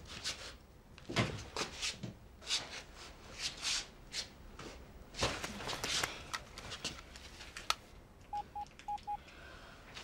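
Scattered light knocks and rustles of handling. Near the end come four short, even beeps at one pitch from a mobile phone's keypad as a number is dialled.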